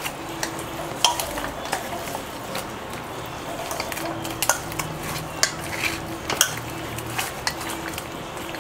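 A bare hand kneading and squishing wet, masala-coated crane meat pieces in a stainless steel bowl. Irregular clicks and knocks come as the pieces and hand hit the steel bowl, over a faint steady hum.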